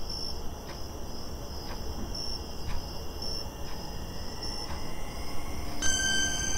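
Crickets chirping at night in short, high, repeated chirps over a low hum, with faint ticks about once a second. Near the end, sustained music tones begin.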